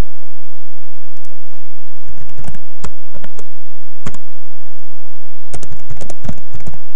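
Computer keyboard being typed on: irregular single key clicks, sparse at first and coming in quicker runs from about two seconds in, over a steady hiss.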